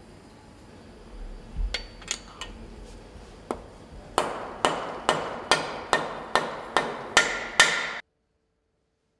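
Hand hammer striking metal on an engine part in hand assembly: a few light clinks, then a steady run of nine sharp metallic taps, about two a second, each with a short ring, stopping abruptly.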